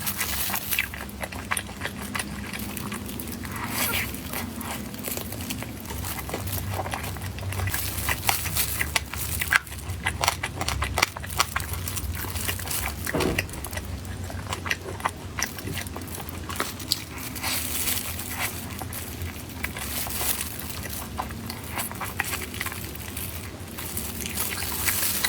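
A person eating close to the microphone: repeated crunchy, crackling bites and chewing.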